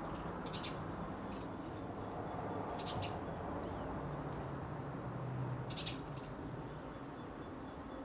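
Small garden birds chirping: three short bursts of high chirps a couple of seconds apart, over a faint, high, rapidly repeated note and a steady low background rumble.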